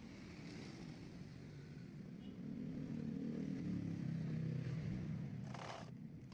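A low motor rumble that swells from about two seconds in and eases off near the end, with a short hiss shortly before it fades.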